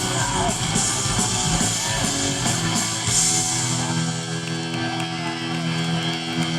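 Live hardcore punk band playing loud distorted electric guitars and drums; about halfway through, the drumming drops away and a guitar chord is left ringing.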